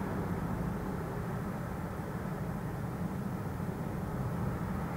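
Steady low droning rumble, heaviest in the bass and unchanging throughout, with no clear beat or separate events. The recordist takes it for a strange sound coming with the fog.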